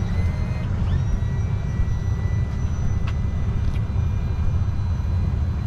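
Boat's Yamaha outboard engine running steadily, a deep, even rumble.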